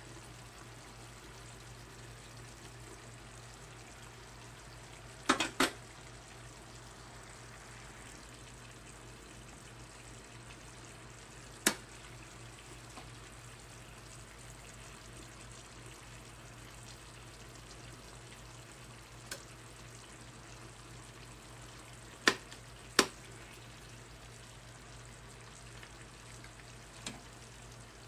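Pork adobo with potatoes and boiled eggs sizzling quietly and steadily in a frying pan, with a metal spoon clinking sharply against the pan a few times as the food is stirred and turned.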